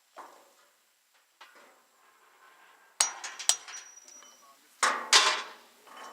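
Sharp metallic knocks and clanks: two quick hits about three seconds in, the first ringing briefly, then a louder clattering rattle near the end.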